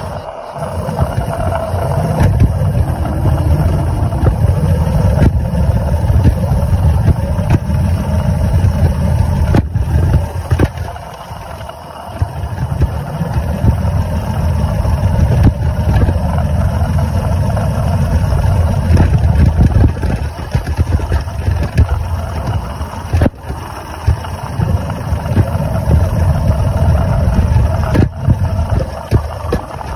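Maxitrak 3/4-inch Sentinel DG6 live-steam wagon running and moving along, heard close from on board as a continuous low rough rumble that eases briefly about twelve seconds in.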